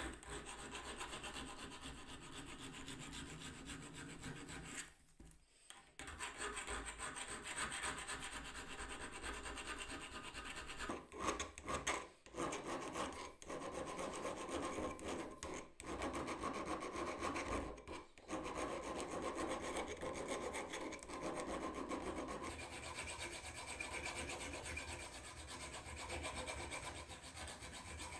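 Hand file scraping back and forth along the edge of a drop-forged steel pipe wrench handle, in continuous strokes that stop briefly about five seconds in and a few times in the middle.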